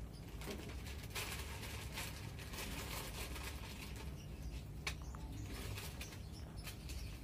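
Plastic instant-noodle packet and seasoning sachets crinkling as they are handled and opened, with a sharp click about five seconds in, over a steady low hum.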